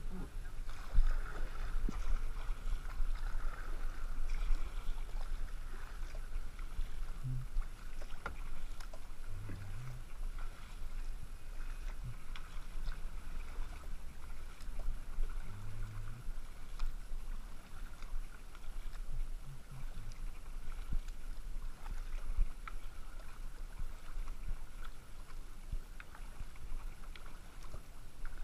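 Kayak paddle dipping and splashing in calm river water as a kayak is paddled along, over a steady low rumble on the microphone.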